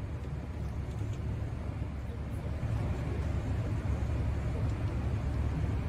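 Steady low rumble of background noise with a faint hiss, growing slightly louder about two and a half seconds in, with no distinct clicks or knocks.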